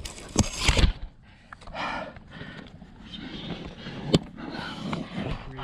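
A climber's hands and rock shoes scuffing and scraping on granite, loudest in the first second, with noisy breaths between moves and one sharp click about four seconds in.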